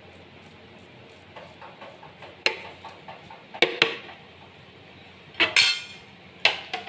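A metal spoon scraping food inside a plastic blender jar, with light scrapes and then four sharp clatters of the spoon knocking against the jar.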